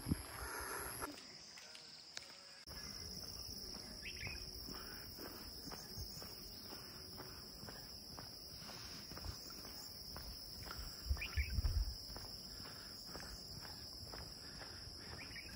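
Insects keep up a steady high-pitched drone in hillside trees and scrub. About eleven seconds in there is a brief low rumble on the microphone.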